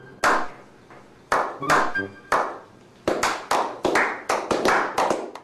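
A slow clap by a small group: a few claps about a second apart, then quickening to about five claps a second.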